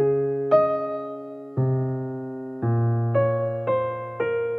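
Background piano music: chords struck one after another, each ringing and fading, coming a little quicker toward the end.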